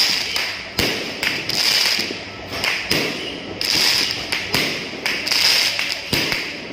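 Fireworks and firecrackers going off in quick, irregular succession: many sharp bangs, several a second, over a continuous crackle.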